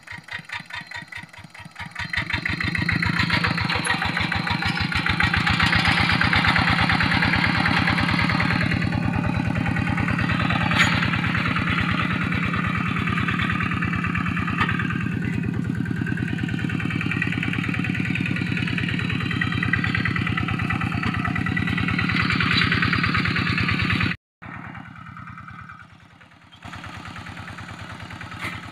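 Kubota RD65 single-cylinder diesel engine of a Quick G600 two-wheel hand tractor running with a fast, even beat while it pulls a moldboard plough through wet paddy soil. It grows louder about two seconds in, cuts out briefly near the end, and comes back quieter.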